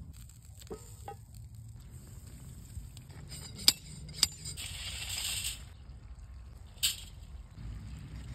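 Sharp metallic clinks of a steel fire-pit grill's swing arms and cooking grate being handled: a couple of light clinks about a second in, two loud ones a little under four seconds in and another near seven seconds, with a short hiss around five seconds in. A low wind rumble on the microphone underneath.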